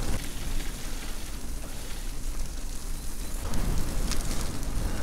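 E-bike tyres rolling over a muddy, gritty dirt trail, a steady crackling hiss, with wind rumbling on the microphone.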